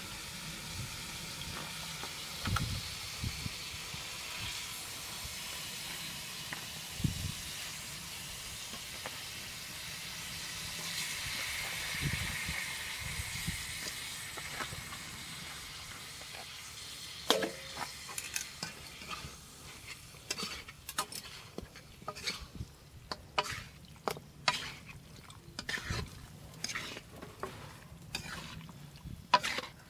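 Spiced masala sizzling and frying in a black metal karahi over a wood fire, a steady hiss that fades about halfway through as raw chicken pieces go into the pan. Then a metal spatula knocks and scrapes against the pan in quick, irregular strokes as the chicken is stirred.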